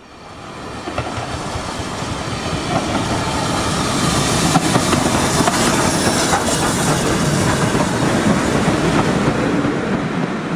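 Steam-hauled passenger train passing close by at speed: a steady rush of running noise with the wheels clattering over the rail joints. It builds up over the first few seconds.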